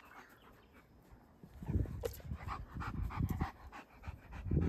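German shepherd panting in quick, even breaths, starting about a second and a half in.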